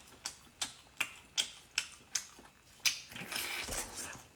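Close-miked chewing of spicy baby squid and cuttlefish: sharp wet clicks about two and a half times a second, with a longer, denser stretch of chewing about three seconds in.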